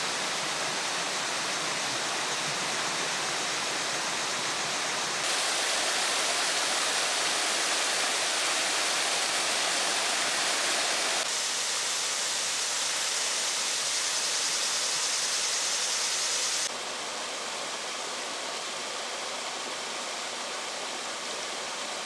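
Waterfalls pouring over rock ledges into pools: a steady rush of water with abrupt shifts in its level and tone about 5, 11 and 17 seconds in.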